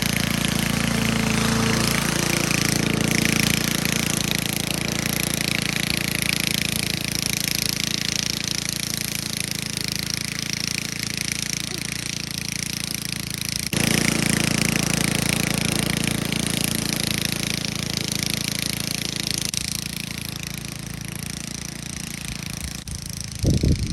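Chainsaw running steadily, with a rough mechanical rattle, and a few loud thumps just before the end.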